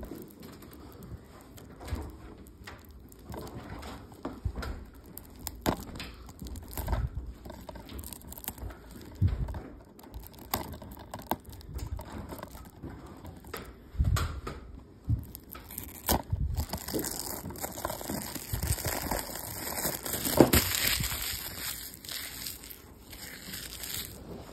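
Plastic shrink-wrap on a DVD case being picked at and peeled off by fingers: scattered crackles, then a longer, louder stretch of crinkling in the last third.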